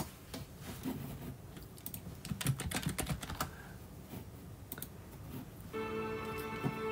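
Typing on a computer keyboard: irregular key clicks. Near the end a clip starts playing, with steady music.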